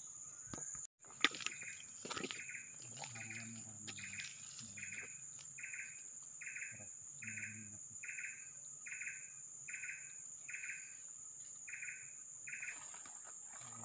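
Forest insects droning steadily at a high pitch, joined a couple of seconds in by a repeated chirping call about twice a second that stops near the end.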